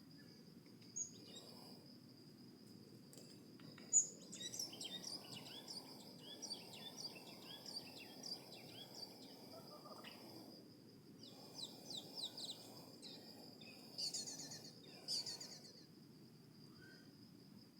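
Birds chirping in quick runs of short high notes, starting with one sharp note about four seconds in, pausing briefly near the middle, then going quiet near the end. Under them, a steady high insect trill from crickets.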